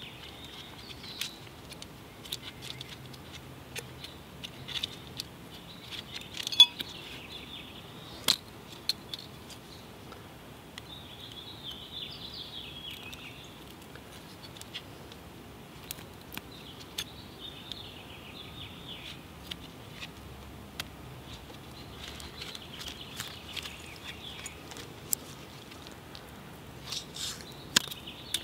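Scattered small clicks and ticks with bouts of light rustling, from gloved hands handling a small trail badge and its adhesive backing.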